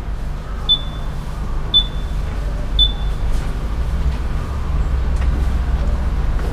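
Steady low background rumble, with three short high-pitched electronic beeps about a second apart in the first three seconds.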